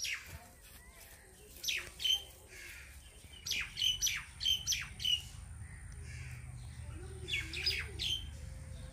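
Birds calling outdoors: short, sharp squawks that drop steeply in pitch, in clusters of several at a time, over a low steady rumble.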